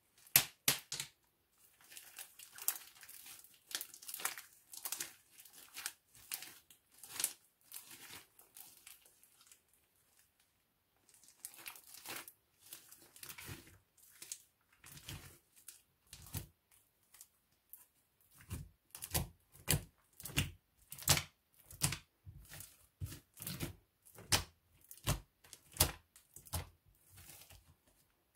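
Hands squishing, stretching and folding black slime made with glue and shaving foam, giving wet crackling and popping clicks. About eighteen seconds in, the hands start pressing the slime against a wooden tabletop, adding soft thuds about twice a second.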